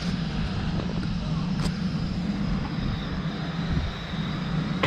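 Portable canister-gas camping stove burning, a steady rushing noise of the lit burner.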